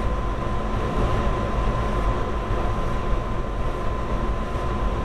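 Steady low rumble with a thin, steady high whine running through it, with no distinct events.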